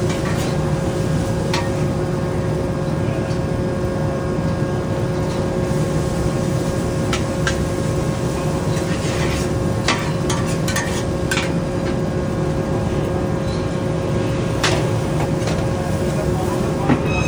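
Metal ladle scraping and clinking against a large wok as Hokkien mee noodles are stir-fried, over a steady roar and hum of the stall's wok burner and extraction, with a louder clank near the end.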